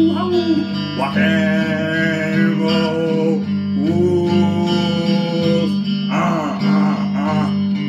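A man singing long, drawn-out notes without clear words over steady guitar music. Two long held notes come first, then a wavering, warbling vocal line near the end.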